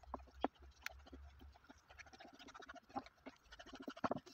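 Wooden spoon stirring a thick cheese sauce in a frying pan: irregular scrapes, clicks and soft squelches against the pan.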